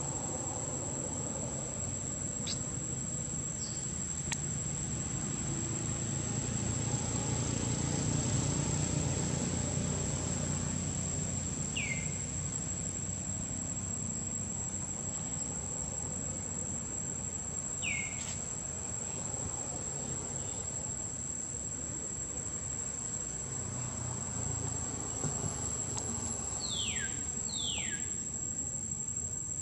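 Steady high-pitched insect drone, with a few short falling squeaks over it, twice in quick succession near the end.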